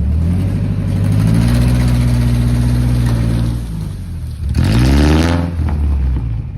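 A vehicle engine revs hard, holds for a few seconds and eases off about four seconds in. It then revs up sharply a second time and drops back near the end.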